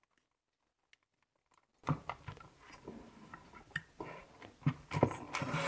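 Handling noise of a USB cable being wound in loops around a plastic floodlight housing: scattered clicks, taps and rustles of cord and plastic. It starts about two seconds in.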